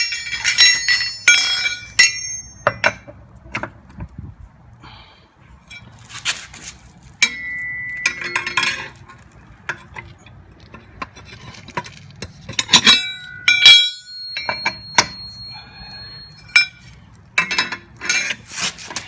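Steel tools clinking and clanking against the wheel nuts as a lug wrench and socket are worked on a car wheel. The knocks come in several clusters, some ringing briefly.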